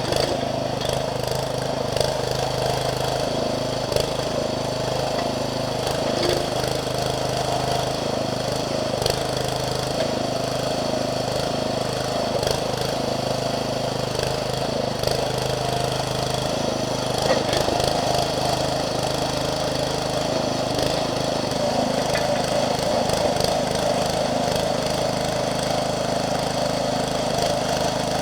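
Towable backhoe's small engine running steadily, driving the hydraulics, with a few sharp knocks as the bucket digs.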